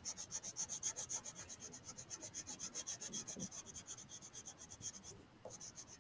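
Crayon scribbled rapidly back and forth on paper while colouring in, a scratchy rubbing of about eight strokes a second, with a short pause a little after five seconds.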